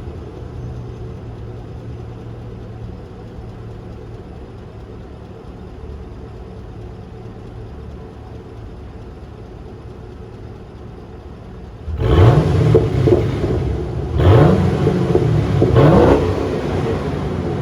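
Car engine idling steadily, then blipped several times from about twelve seconds in, with small exhaust snaps, crackles and pops as the revs rise and fall.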